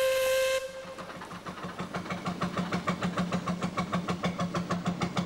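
A narrowboat's diesel engine running with a fast, even chugging beat. A steady whistle-like note cuts off about half a second in, just as the engine beat takes over.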